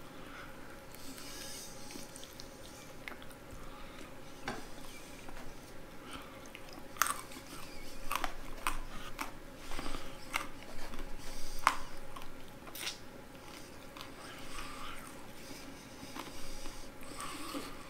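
A man biting and chewing breaded fried chicken close to the microphone, with a run of sharp crunches between about seven and thirteen seconds in.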